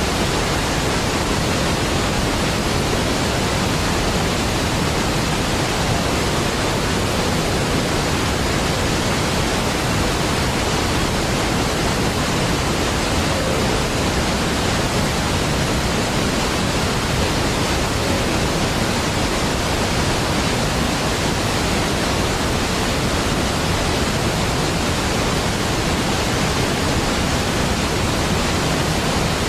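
Large waterfall rushing in a steady, even roar of falling water, deep and unbroken, with no changes.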